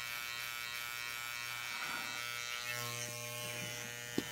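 Corded electric hair clippers buzzing steadily while trimming a man's eyebrows, with a single short click near the end.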